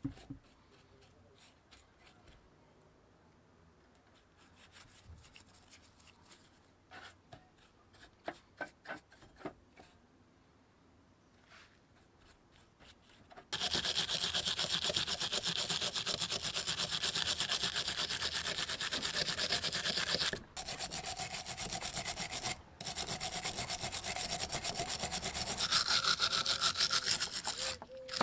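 A hand wire brush scrubbing rust off a steel gear from an old hand drill, the gear clamped in a vise. After a quiet start with a few faint strokes, the scrubbing starts abruptly about halfway in: fast, even back-and-forth scratching of steel bristles on metal, with two brief pauses.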